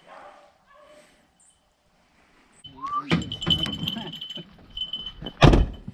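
A dog's collar bell jingling with a steady ringing tone, amid clattering and rustling, with a loud thump near the end. A dog whines faintly at the start.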